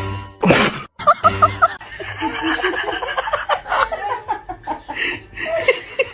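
Music with people laughing, and a short sharp hiss-like burst about half a second in.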